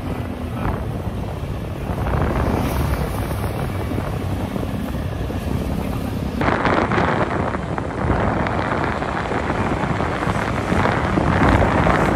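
Wind buffeting the microphone from riding on a moving motor scooter, with engine and road noise underneath. The sound changes abruptly about six seconds in, growing brighter and a little louder.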